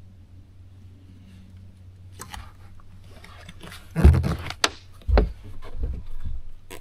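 Fishing rod and tackle handled on a fibreglass bass boat deck: light clicks at first, then several loud thumps and scrapes as a rod is picked up off the deck. A low steady hum runs underneath.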